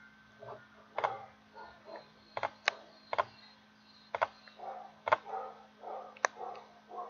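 A dog whimpering in short, repeated whines, mixed with sharp mouse clicks every half second or so.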